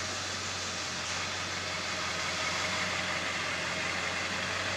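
Pickup truck engine idling steadily, with an even low hum under a hiss.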